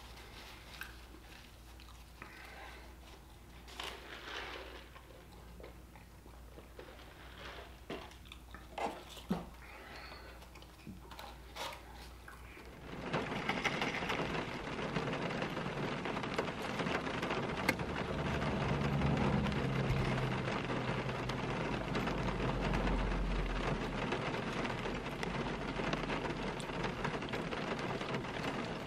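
Close eating sounds: biting and chewing fried chicken fingers, with small clicks and crunches. About thirteen seconds in, these give way to a steady patter of rain on a car's roof and windows, heard from inside the car.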